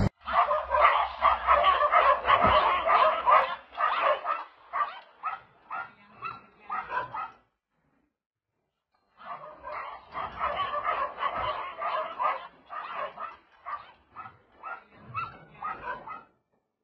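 A dog barking and yapping rapidly in two long runs, each thinning out into separate barks toward its end, with a short silence between the runs.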